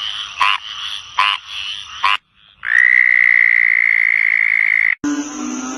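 Several frog recordings cut together: first a frog giving short calls about once every second, then after a brief gap a long, steady high-pitched trill held for over two seconds, then a sudden switch to a deeper, lower-pitched call near the end.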